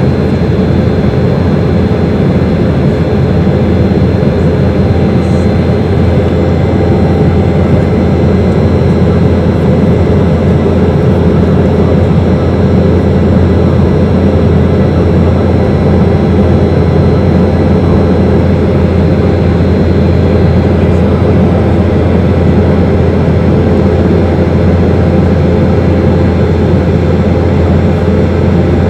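Cabin noise of an Embraer 190 airliner in its climb after takeoff: the steady drone of its two GE CF34 turbofans and the rush of air, heard inside the cabin. A thin high whine in the drone fades out about two-thirds of the way through.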